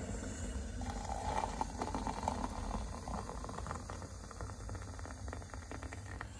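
Hot water poured from an electric kettle into a glass mug of instant coffee and sugar. The pour starts about a second in as a steady trickle with small splashes, filling the mug.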